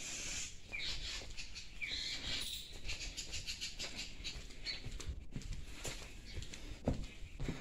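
Birds chirping, with high twittering calls in the first few seconds. Footsteps land on a paved walkway, and a few low thumps come near the end.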